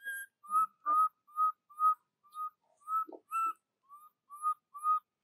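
Baby macaque crying for its mother: a steady string of short, whistle-like cries, about two a second.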